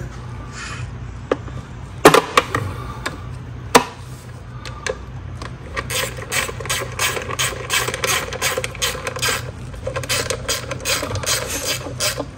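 Hand ratchet working a bolt up under the transmission: a couple of sharp knocks in the first few seconds, then a fast run of ratchet clicks through the second half.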